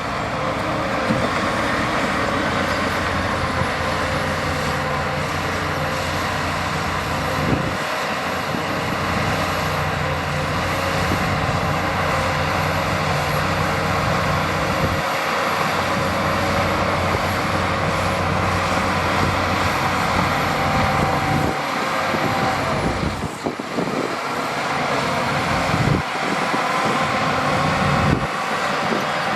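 Heavy diesel earthmoving machinery, a bulldozer and dump trucks, running under load with a steady engine drone and mechanical clatter. The sound shifts abruptly several times.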